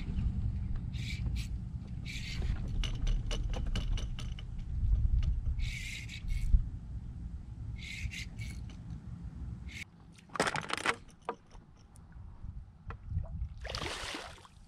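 A hooked redfish thrashing and splashing at the surface beside a small boat, with two loud splashes about ten and fourteen seconds in. Before them there is a steady low rumble broken by short hissing bursts.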